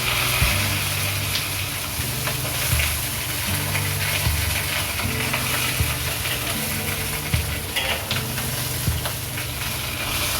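Food sizzling in hot oil in a pan, with scattered light clicks of a utensil stirring.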